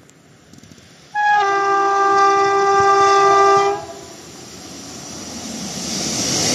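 Approaching passenger train sounds one long horn blast of about two and a half seconds, a steady chord of tones. After the horn stops, the running noise of the train swells steadily as it nears.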